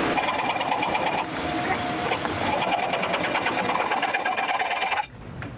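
Hand pipe cutter being turned around a pipe, a fast, steady scraping clatter as the cutting wheel works in. It falters briefly about a second in and stops shortly before the end.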